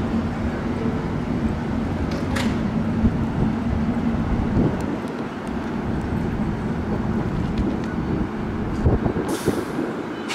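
An R188 subway train standing in the station, its equipment running with a steady hum. A short hiss of air comes about two seconds in, and a louder one about nine seconds in.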